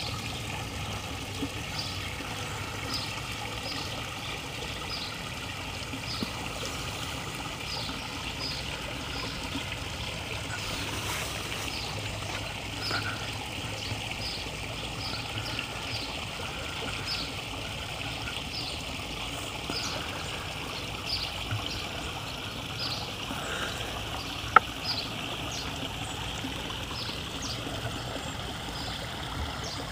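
Water trickling steadily from a small backyard rock-garden waterfall, with a short high chirp repeating about every two-thirds of a second. There is a single sharp click about three-quarters of the way through.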